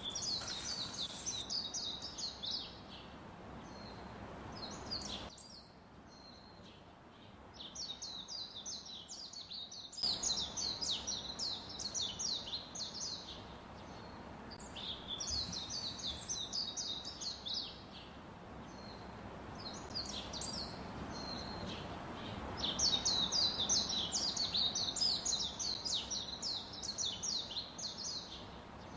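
Birds chirping in quick repeated series of short high notes, in bursts of a few seconds, over a steady background hiss.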